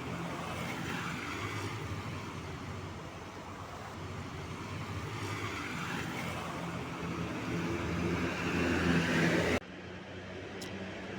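Road vehicle engine running with traffic noise, a steady low hum under a rush that swells and fades. The sound drops suddenly about nine and a half seconds in.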